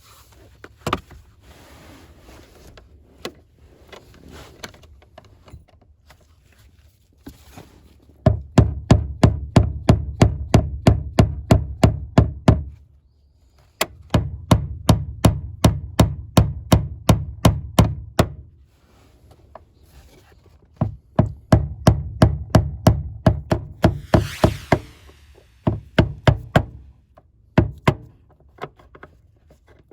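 Hammer striking a screwdriver at about three blows a second, in three runs with short pauses between, to drive a tight fuel pump lock ring round. Quieter scraping comes before the blows.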